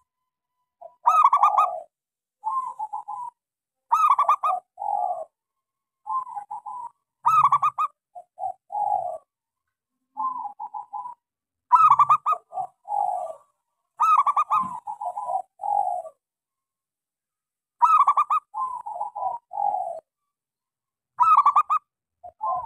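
Zebra dove (perkutut) singing its cooing song: repeated phrases every few seconds, each opening with a sharp bright note followed by a few rolling, lower coos, with silence between phrases.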